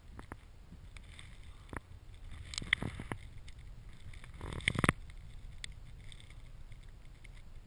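Wind rushing past a body-mounted camera's microphone in freefall: a low, steady rumble. A few sharp knocks come about three seconds in, and a louder cluster just before five seconds.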